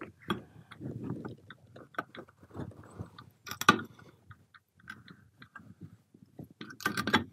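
Scattered metallic clicks, knocks and light scraping as a gear drive is worked onto a ball valve's gearbox mount, its hex drive being seated on the valve ball's hex. One sharper knock comes about halfway through.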